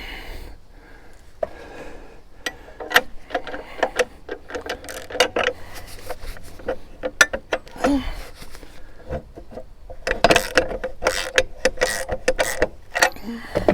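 Hand tools working the mounting hardware of a steel chainsaw carrier: a run of irregular metallic clicks and clanks that grows busier about ten seconds in.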